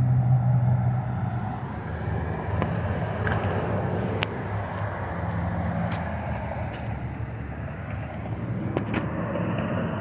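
Motor vehicle engine running with a steady low hum over road-traffic noise, strongest at the start, with a few light clicks.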